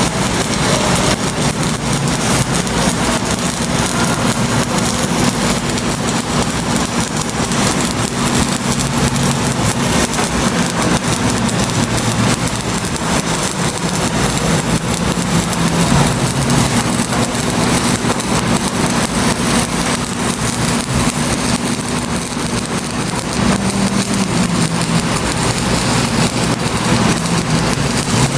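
A running machine: a steady, dense crackle over a low hum that wavers slightly in pitch.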